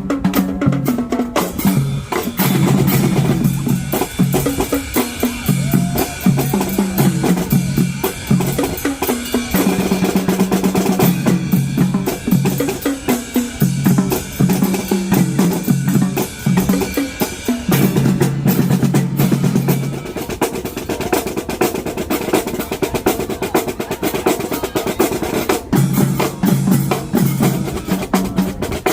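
Marching drumline playing a cadence: rapid snare drum strokes and rolls over pitched bass drum notes. The low drum notes drop out for several seconds about two-thirds of the way through, then come back.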